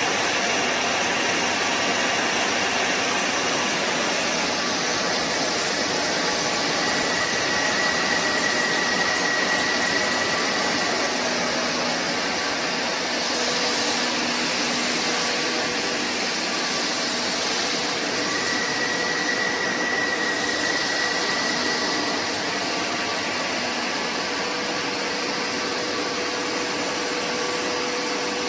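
Lathe running with a shaft-polishing (mirror-finishing) head on the turning shaft: a steady whirring hiss, with a faint high whine that comes and goes twice.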